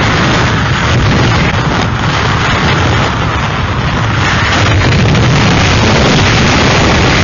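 Hurricane wind blowing hard and buffeting the microphone: a loud, unbroken rush of noise with a heavy low rumble.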